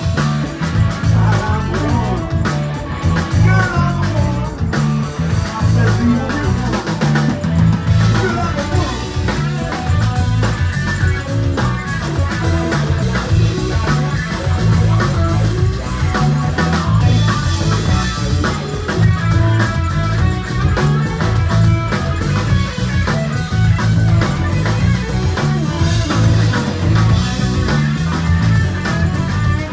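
A live prog-rock band plays loud and steady, with electric guitar, bass, drums and organ.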